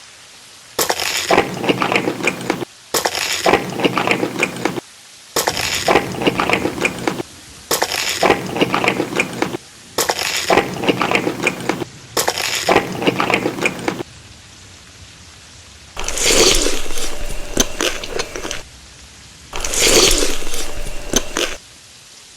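Crunchy food being bitten and chewed close to the microphone, in a run of separate bursts of about two seconds each that start and stop abruptly.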